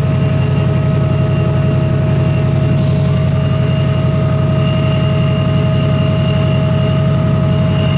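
Diesel train engine running steadily close by: a low, even throb with several steady whining tones above it. A brief hiss about three seconds in.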